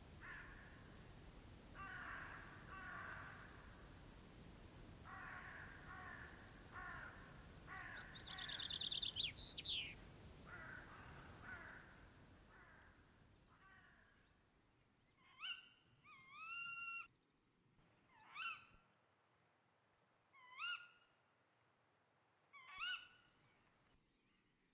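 Crows cawing repeatedly, in groups of two or three calls, with a short rapid trill about eight seconds in. Then, over a quieter background, a series of short, clear calls, each rising sharply and then levelling off, about every two seconds.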